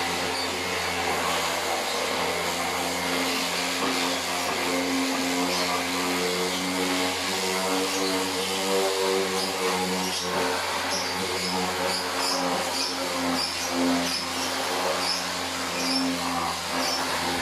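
NRT handheld electric sander running steadily as it sands a wooden board. Its motor hum wavers slightly in pitch under the load of the sandpaper on the wood.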